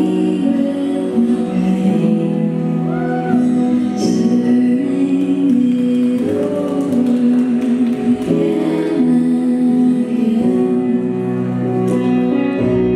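Slow ballroom dance music with a singing voice over sustained backing.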